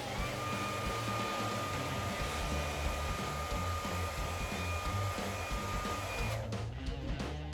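Hair dryer blowing with a steady whine, switched off about six seconds in, over background music with a steady bass beat.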